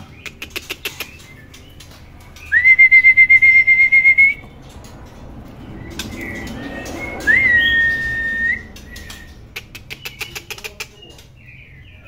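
Whistling in two long steady notes, each starting with a quick upward slide and then held level; the first, a few seconds in, pulses rapidly in loudness and is the loudest sound, and the second comes about seven seconds in. Quick runs of light clicks come near the start and again near the end.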